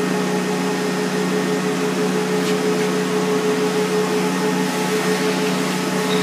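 A machine motor running steadily: a constant hum, one low note and one higher, under an even hiss, with no change in speed.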